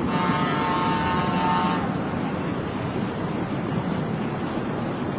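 A vehicle horn sounds for just under two seconds, then stops, over the steady rushing noise of floodwater running down a street.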